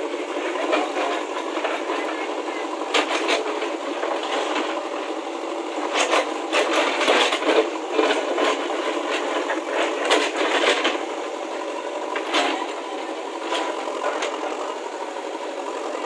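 JCB backhoe loader's diesel engine running steadily under load while its rear bucket digs and scrapes into stony ground, with irregular clattering and scraping of rock and gravel, busiest from about six to eleven seconds in.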